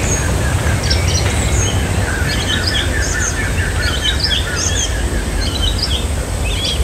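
Several wild birds chirping and calling over one another, with a run of quick repeated notes starting about two seconds in, over a steady low rumble.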